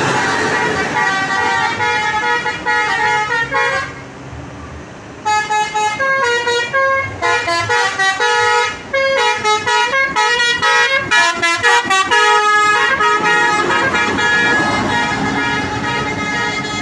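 Basuri telolet multi-tone bus horns playing a quick tune, the notes stepping rapidly up and down. There is a short break about four seconds in, and then the tune starts again.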